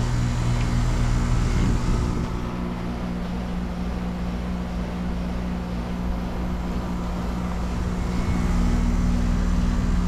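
Outdoor central air-conditioning condenser unit running with a steady low hum from its fan and compressor.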